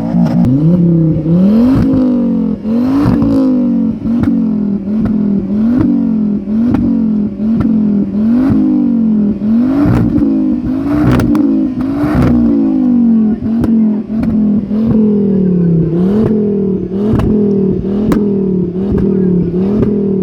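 Modified car engine revved hard over and over, its pitch climbing and falling back about once a second, with sharp exhaust cracks and pops between the revs.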